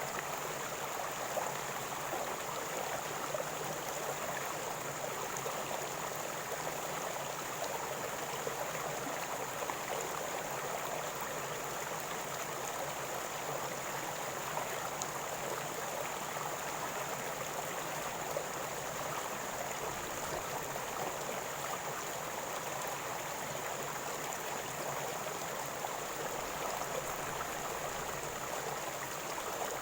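River water flowing and gurgling steadily, an even rushing with small bubbling splashes.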